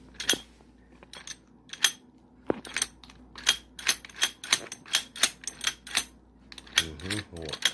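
Sharp clicks from a prototype door-lock mechanism as its thumb-turn knob is turned by hand and the gears and latch work: a few single clicks, then a quick run of about three or four a second from about three seconds in.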